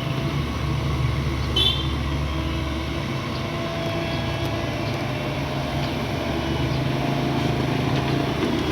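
Heavy diesel engine of an excavator running steadily under work, a continuous low rumble that eases a little about three seconds in and builds again near the end.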